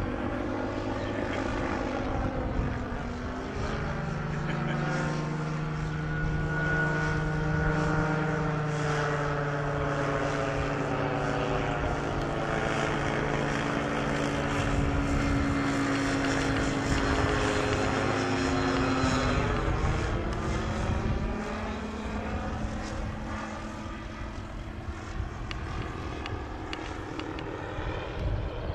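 Kolb ultralight's pusher engine and propeller passing low overhead. The note holds steady and grows louder as the plane approaches. It is loudest with the plane overhead, then drops in pitch and fades as it flies away over the last third.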